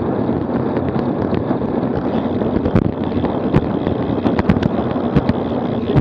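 Wind rushing over a bike-mounted camera's microphone on a moving road bike, with steady tyre-on-tarmac rumble. Sharp rattles and knocks from the mount jolting over the road surface, coming more often in the second half.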